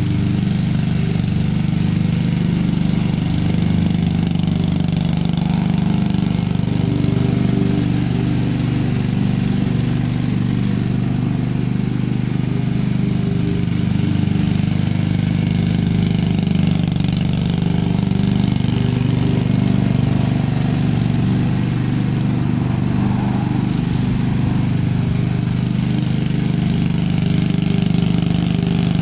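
Craftsman riding lawn mower's engine running steadily at an even speed.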